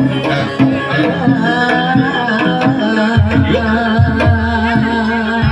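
Live jaranan (kuda lumping) music: Javanese kendang hand-drum strokes over gamelan instruments, with a sung or wavering melodic line. A deep bass note comes in about three seconds in.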